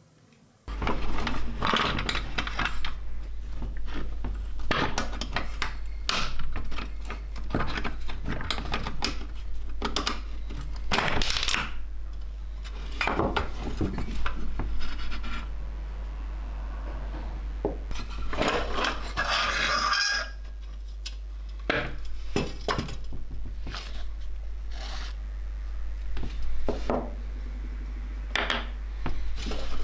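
Irregular metallic clinks, knocks and scrapes from the parts of a rusty pressed-steel toy jeep being handled and worked on by hand, with a longer scraping stretch past the middle. A steady low hum runs underneath.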